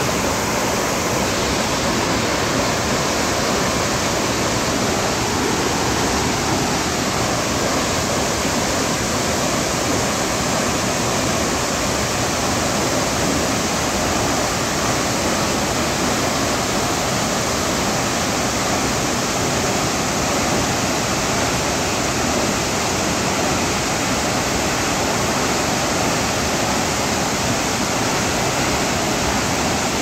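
Large waterfall swollen with muddy floodwater, pouring heavily in a steady, loud rush of water.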